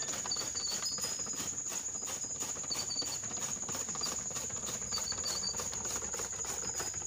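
Steady high insect chirring, over faint irregular clicking and rattling from a bull-driven iron gear and drive shaft turning a fodder-cutting machine.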